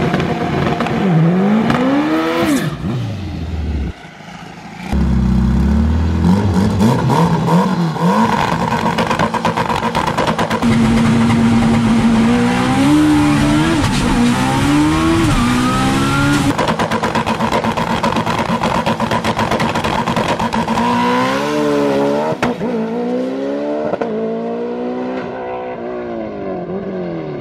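Twin-turbo Toyota MR2 drag car making a pass: the engine revs up and down on the line, launches hard about five seconds in, and climbs in pitch through the gears with a break at each shift. The revs then fall away over the last few seconds as it coasts. This is the run on which, the driver says, a charge pipe blew in third gear and the boost fell off.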